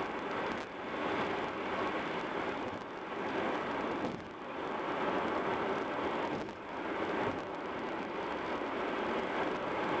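Steady tyre and wind noise of a car driving at highway speed, with brief dips about four and six and a half seconds in.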